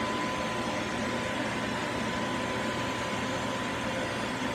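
Skin-cooling air chiller blowing cold air onto laser-treated skin to draw off the heat: a steady hiss of air with a thin, steady high tone.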